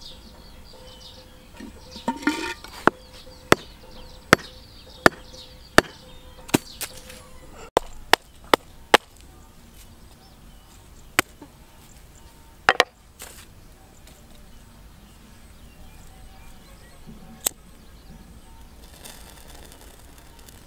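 A knife chopping into a hard, round, rough-skinned object on the ground. About ten sharp knocks come in the first half, evenly spaced at first and then quicker, followed by a few scattered knocks.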